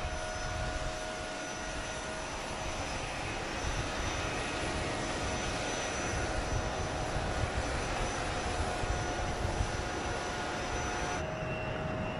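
Steady whine and rumble of an aircraft turbine running, with several fixed high tones over the noise; the tones change abruptly about a second before the end.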